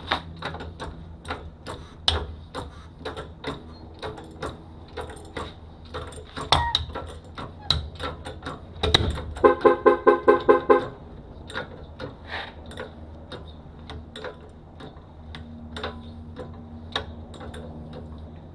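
Scattered clicks and knocks of handling over a steady low hum, with a run of about eight quick pitched beeps near the middle.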